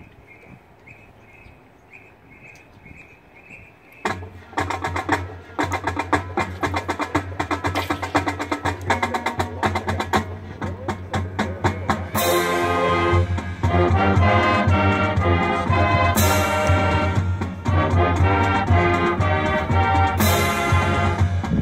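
Marching band opening its show. After a few seconds of faint, evenly spaced ticks, the percussion starts about four seconds in with fast drum and mallet strokes. The full band joins around twelve seconds in, with cymbal crashes about every four seconds.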